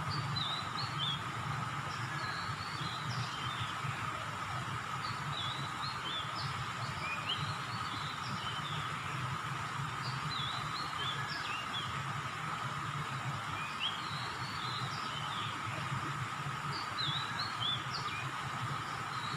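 Small birds chirping in repeated clusters of short, quick notes, over a steady high drone and a low rumble of outdoor background noise.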